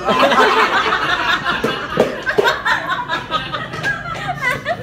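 A group of women laughing hard, mixed with bits of talk.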